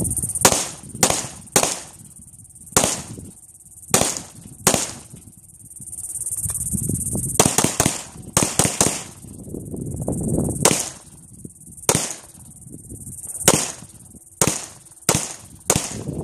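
Gunshots, about eighteen sharp cracks at uneven intervals, some single and some in quick runs of three or four, over a steady high insect drone.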